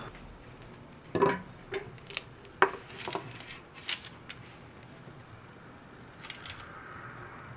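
Stainless wire cooling rack being set down and shifted on a wooden board: a run of light metallic clinks and knocks over about three seconds. A brief crinkle of parchment paper comes near the end as the buns on the sheet pan are handled.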